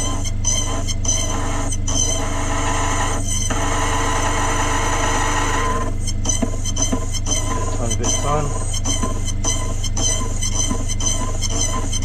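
Cyclone key machine running, its cutter wheel grinding a brass mortice key with a steady squeal over the motor's low hum. About halfway through, the cutting noise starts breaking off in many short gaps as the cutter is traced on and off the metal.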